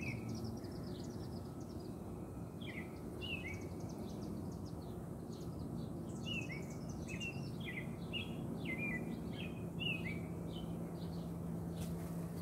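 A steady low hum of honey bees from an open hive as frames of bees are handled, with a bird chirping short, falling notes over and over.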